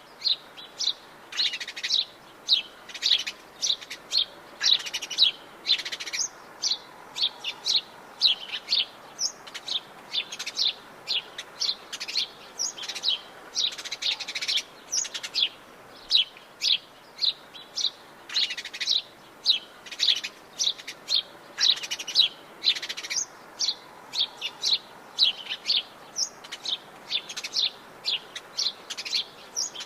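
Forest songbirds chirping: a steady stream of short, high chirps, two or three a second, with no pause.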